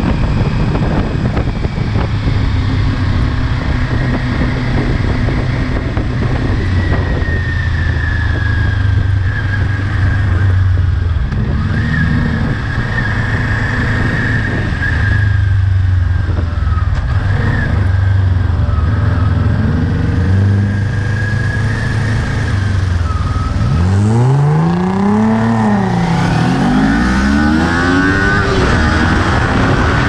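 Kawasaki Ninja 400's parallel-twin engine under heavy wind buffeting on the camera, running steadily at first. From about 24 seconds in it revs up hard through the gears, its pitch climbing and dropping back at each upshift.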